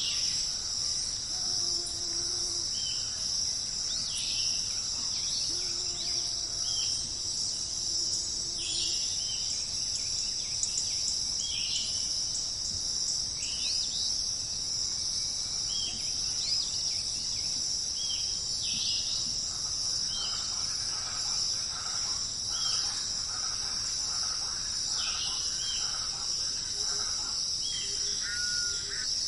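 Steady, high-pitched chirring of an insect chorus, with short bird chirps every second or two and more varied bird calls near the end.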